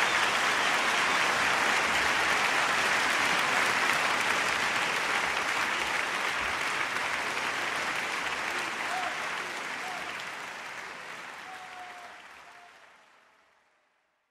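Large concert audience applauding steadily, fading out to silence over the last few seconds.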